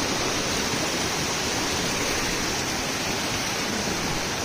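Rocky mountain stream rushing over and between boulders: a steady, even water noise with no breaks.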